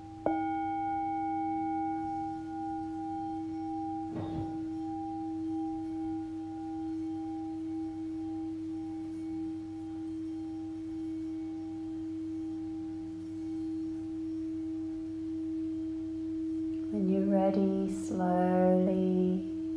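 Tibetan singing bowl struck once and left ringing: a steady low hum with several higher overtones, the upper ones dying away over the next several seconds while the low tone holds.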